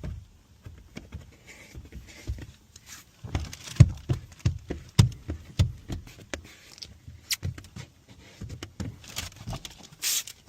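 Irregular soft knocks and thumps, with a few brief hissing sounds, the loudest near the end.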